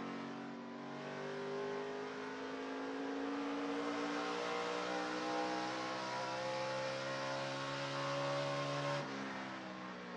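NASCAR Truck Series V8 engine heard from the onboard camera at full throttle, its note climbing steadily as the truck accelerates down the straightaway. About nine seconds in the pitch drops suddenly as the driver lifts off the throttle.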